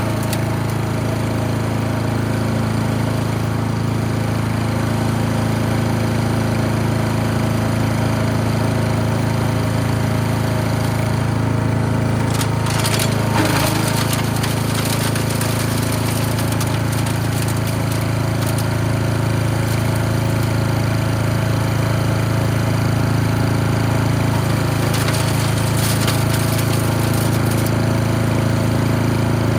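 Gasoline engine of a GreatCircleUSA chipper shredder running steadily at wide-open throttle, with a short burst of clatter about 13 seconds in.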